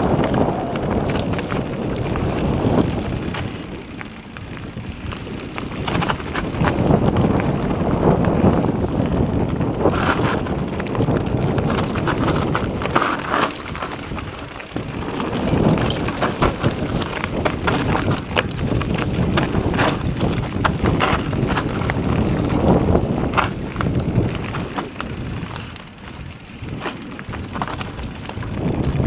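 Mountain bike descending a dirt trail at speed: tyres rolling over dirt and loose stones, and the bike rattling with many quick clicks. Wind buffets the microphone throughout. The noise eases briefly about four seconds in and again near the end.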